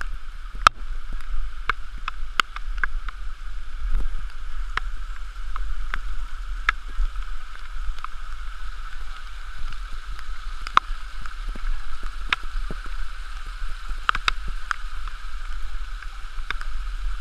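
Waterfall water and spray, heard muffled through a waterproof GoPro housing: a steady rushing hiss over a low rumble, broken by frequent sharp clicks and taps at uneven intervals.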